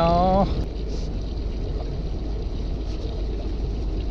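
Steady low rumble of a fishing boat's engine idling, with a man's voice trailing off in the first half second.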